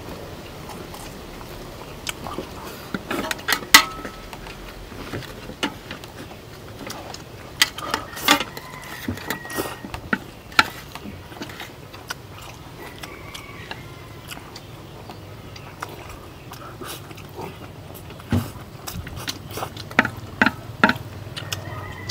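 Chopsticks and utensils clicking and clinking against plates during fast eating, with chewing. The clicks come irregularly, in small clusters.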